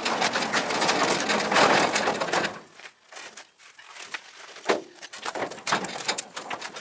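Steel pickup cab body being scraped and shuffled across wooden floorboards: a loud, rough scraping for the first two and a half seconds, then quieter scuffs and a few knocks.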